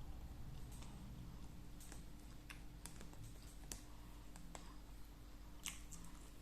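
Person eating: faint, irregular small clicks and ticks from mouth and chewing, about two a second, over a steady low hum.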